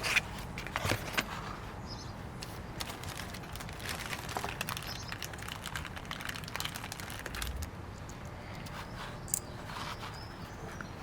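A few sharp clicks in the first second, then faint scattered ticks and rustles from small snap-fastener parts and tools being handled, over a low steady hum. These are not a run of hammer blows.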